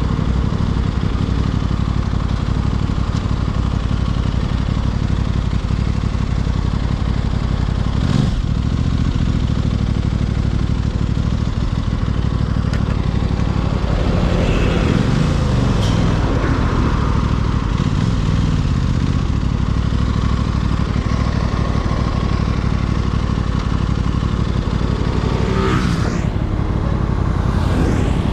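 Aprilia RS660 parallel-twin engine and exhaust running under way. The revs rise and fall a few times about halfway through, then climb steeply near the end as it accelerates.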